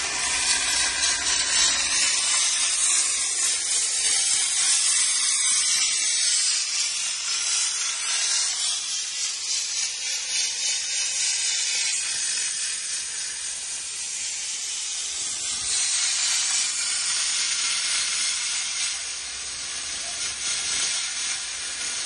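Abrasive blasting with copper slag grit: a continuous hiss of compressed air and grit blasting from the nozzle, a little fainter in the second half.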